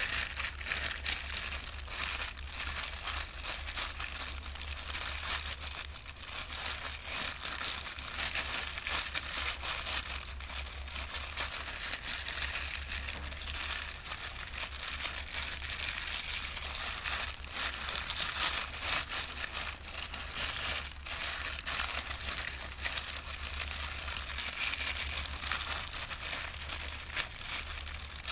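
A thin disposable plastic glove crinkling and rustling against a banana leaf as a gloved hand rubs and presses minced lemongrass and chili into a whole snakehead fish, with many small crackles throughout. Under it runs a steady low hum.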